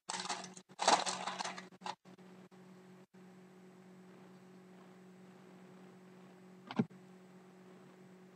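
Foil trading-card pack wrapper being torn open and crinkled for about two seconds, loudest about a second in. After that only a faint steady hum, with a single short knock near the end.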